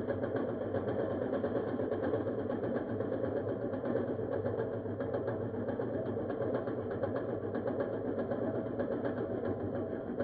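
EZ-Tools 18-inch manual reel mower being pushed across grass, its freshly tuned reel spinning against the bedknife and cutting: a steady, fast whirring clatter of many rapid ticks.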